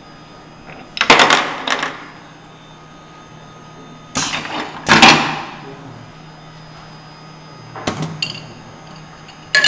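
Pneumatic cylinders and valves of an automated parts-handling station actuating in four bursts of sharp clacks, each with a short noisy tail: about a second in, around four to five seconds in, near eight seconds, and again at the very end, over a faint steady hum from the running conveyor.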